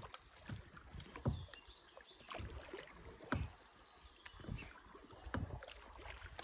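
Small boat being rowed or paddled on calm water: strokes in the water with knocks, about one a second.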